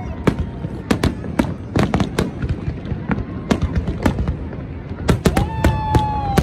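Fireworks display: a rapid, irregular string of sharp aerial shell bursts and crackling bangs. About five seconds in, a long, high, held tone sounds over the bangs for about a second.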